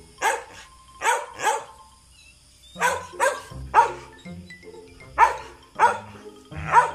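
A dog barking again and again up into a tree, about nine loud sharp barks in uneven bunches of one to three.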